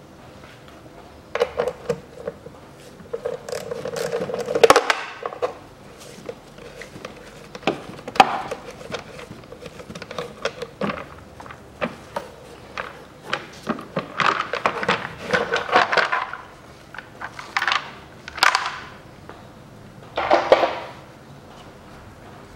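Plastic clicks, knocks and scraping as the air filter housing cover on a Peugeot 408's engine is unbolted, worked loose and lifted off, exposing the old air filter. The noises come irregularly, with the loudest knocks about four to five seconds in and again around eight seconds.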